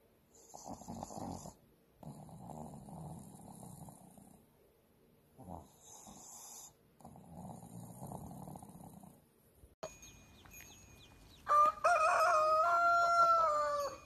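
Boston terrier snoring as it dozes off, about four slow, soft breaths two seconds apart. Then, after a cut, there is faint high chirping, and near the end a loud, long farm-fowl call held for about two seconds.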